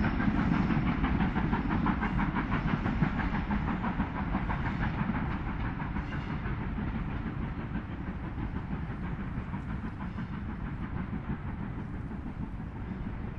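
BR Standard Class 5 4-6-0 steam locomotive 73082 working along the line, its rapid exhaust beats and rail noise fading steadily as it moves away.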